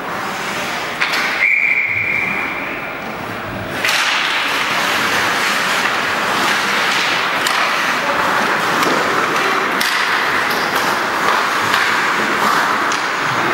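Ice hockey rink sound: a steady referee's whistle blows for about a second and a half, starting about a second in. From about four seconds in comes a continuous hiss of skates on the ice, dotted with sharp clacks of sticks and puck.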